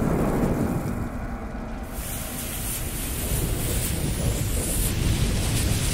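Sound-effect hiss of a burning fuse and fire over a low rumble, the hiss growing brighter about two seconds in.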